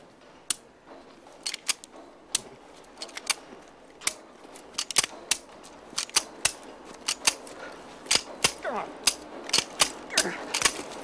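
Semi-automatic pistol clicking repeatedly without firing: the trigger is pulled on a pistol that fails to go off, and the action is worked between tries. Some two dozen sharp, irregular metallic clicks.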